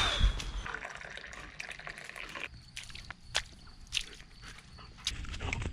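A thump just after the start, then bare feet stepping on a wet dirt-and-gravel path: soft wet squishes with a few sharp clicks.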